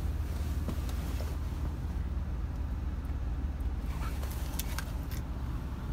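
Infiniti FX/QX70 SUV engine idling steadily after being started by a Fortin remote starter, heard as a low hum inside the cabin. A few light clicks come about four to five seconds in.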